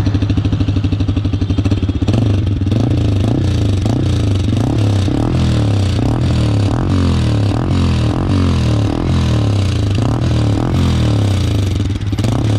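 Yamaha R15 V4's 155 cc single-cylinder engine running at idle through a newly fitted aftermarket R9 slip-on exhaust with its dB killer still in, heard close to the muffler outlet. It is a steady, even low exhaust note.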